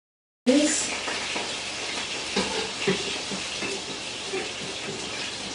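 Oil and butter sizzling steadily in a hot frying pan, a hiss that cuts in suddenly about half a second in. A few knife taps on a cutting board come through it as spring onions are chopped.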